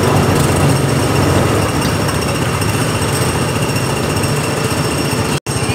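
Small gasoline engine of a Tomorrowland Speedway ride car running under way, a steady rapid putter. A moment of silence breaks it near the end.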